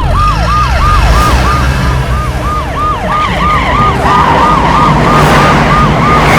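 Police siren in fast yelp mode, sweeping up and down about three times a second, over a steady low rumble.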